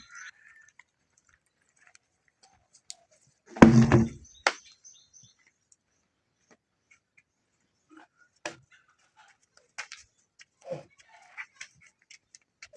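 A single short animal call about four seconds in, the loudest sound. Otherwise only scattered faint clicks and light knocks.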